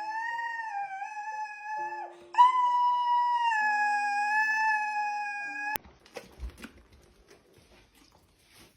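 A dog howling in two long, wavering notes along with held instrument notes. The first howl breaks off about two seconds in, and the second runs until it cuts off abruptly near six seconds.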